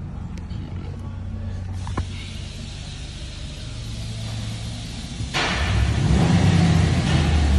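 Pickup truck engine idling steadily, heard from inside the cab, with a single click about two seconds in. About five and a half seconds in, a loud rushing noise starts suddenly and continues over the idle.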